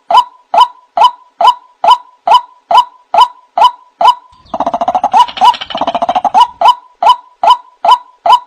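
White-breasted waterhen (ruak-ruak) calling, played as a bird-lure recording: short, sharp, repeated call notes a little over two a second. About four and a half seconds in they give way to a couple of seconds of fast, harsh chattering, then the steady repeated notes return.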